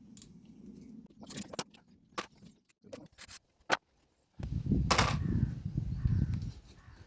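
Hand tools working the engine mounting bolts of a motorcycle frame: a string of separate metal clicks and knocks, then about two seconds of low crunching and grinding as a bolt is turned, with one sharp click in the middle of it.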